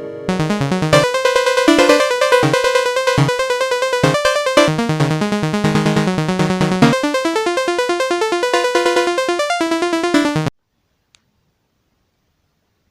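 Background synthesizer music with quick repeated notes, cutting off suddenly about ten and a half seconds in; then near silence with a single faint click.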